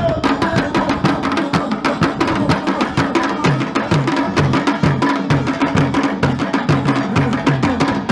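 Ensemble of tall wooden traditional ngoma drums played by hand, a fast, dense, steady rhythm of strikes with deep pitched drum tones under sharper slaps.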